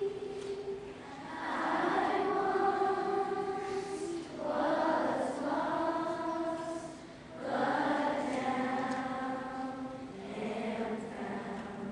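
Children's school chorus singing, in phrases of held notes with short breaks between them.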